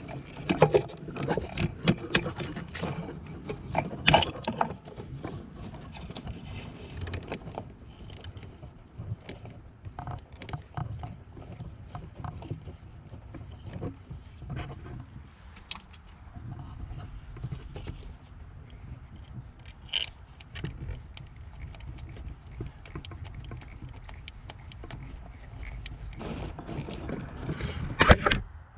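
Scattered clicks and knocks of metal hand tools and engine parts being handled under the hood while an ignition coil is refitted over a spark plug, busiest in the first few seconds, with one sharp knock near the end.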